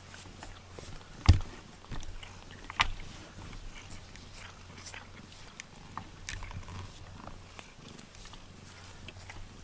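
Domestic cat purring steadily up close while being stroked, with a few soft knocks and rubs from the cat and hand against the microphone, the loudest about a second in.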